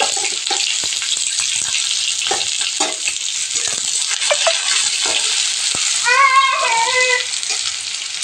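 Sliced onions sizzling as they fry in hot oil in a kadai, with short knocks from a stirring spoon against the pan. A brief high-pitched voice-like sound about six seconds in.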